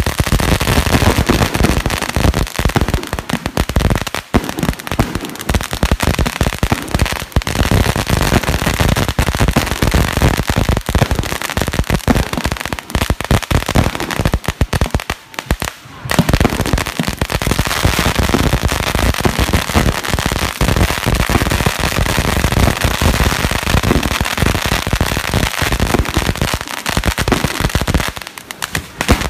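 Hanging strings of red Chinese firecrackers going off in a loud, dense, rapid crackle of bangs, with a brief lull about halfway through before the barrage resumes.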